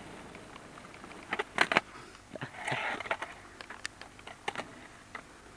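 Scattered sharp clicks and knocks over faint hiss, with two loud clacks close together about a second and a half in and a short scrape a little later.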